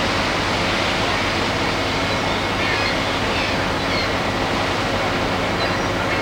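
Water rushing steadily into a canal lock as it fills, with a steady low hum underneath.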